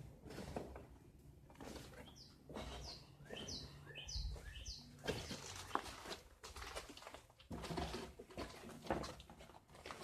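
Footsteps scuffing and crunching over a debris-strewn floor in a small room, with a run of about five short, high, falling chirps about two to five seconds in.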